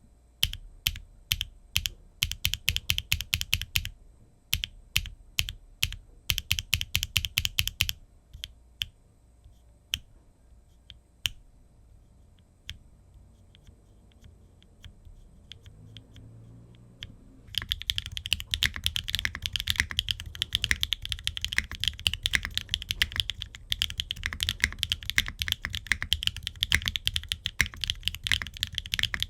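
Keys being typed on a mechanical keyboard with HMX Aster linear switches, ABS double-shot Cherry-profile keycaps, an aluminum plate and an aluminum gasket-mount case with no foam. For the first several seconds the keys are pressed slowly in short groups, then only a few scattered presses follow. About 17 seconds in, fast continuous typing begins.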